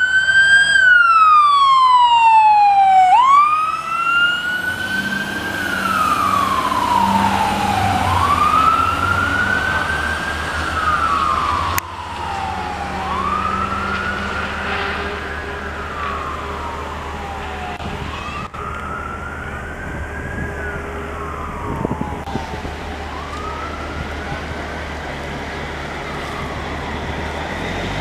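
Fire engine siren on a wail, each cycle climbing quickly and sliding slowly down, about once every five seconds, over the truck's low engine rumble. It is loudest at the start and fades as the engine drives away.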